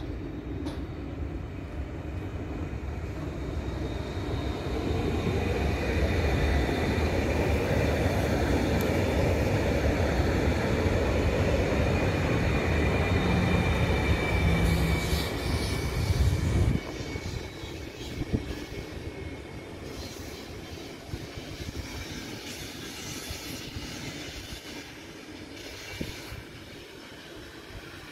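Koleje Śląskie EN75 electric multiple unit pulling into the station, its running rumble and clatter growing louder as it passes close by, with a steady high-pitched squeal of wheels and brakes as it slows. About two-thirds of the way through the loud running noise drops off suddenly, leaving a much quieter background with a few clicks.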